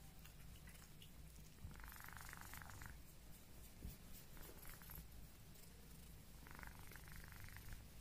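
Ginger Exotic Shorthair cat purring faintly, a steady low rumble, while its chin is scratched, with two breathier stretches about two and seven seconds in.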